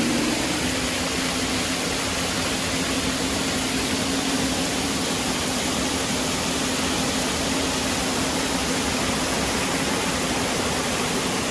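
Waterfall rushing steadily, with a faint steady hum underneath.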